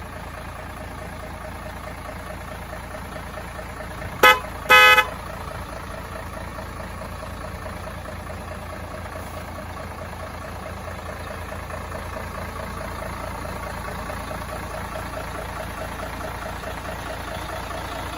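Remote-control model truck running steadily, with two short horn toots about four seconds in, the second a little longer than the first.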